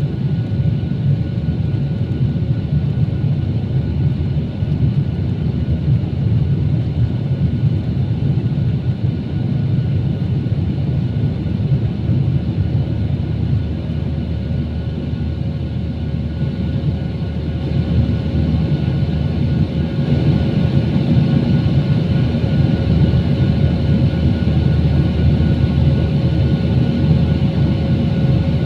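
Airbus jet airliner in flight, its engines and airflow making a steady low rumble with faint steady tones above it. The rumble grows slightly louder about two-thirds of the way through.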